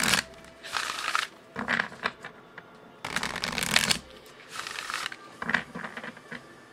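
Starseed Oracle card deck being shuffled by hand: cards sliding and slapping together in about six separate rustling bursts, the longest about three seconds in.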